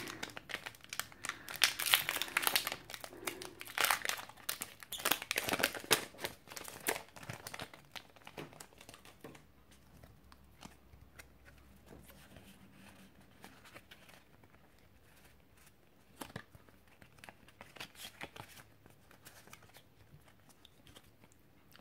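A Pokémon trading-card booster pack's foil wrapper crinkling and tearing open, loud crackling for the first several seconds. After that, quieter scattered rustles and soft clicks of the cards being handled.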